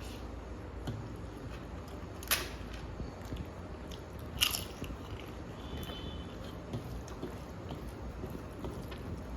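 Close-up eating: two sharp, crisp crunches about two seconds apart, the first a little over two seconds in, among quieter chewing and small mouth clicks. The crunch fits a bite of crisp papad.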